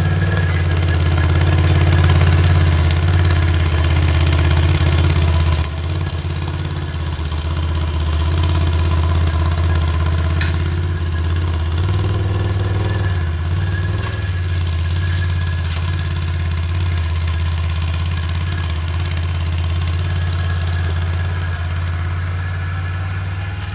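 Engine running steadily at low revs, easing slightly in level about six seconds in, with one sharp click about ten seconds in.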